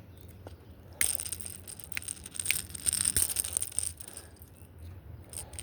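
Metal rattling and clicking of pliers against a treble-hooked popper lure as the hooks are worked out of a small bass's mouth. It starts about a second in and dies down after about three seconds.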